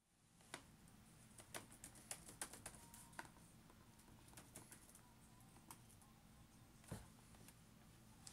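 Faint typing on a laptop keyboard: irregular key clicks, quick and close together for the first three seconds, then sparser, with one heavier knock about seven seconds in.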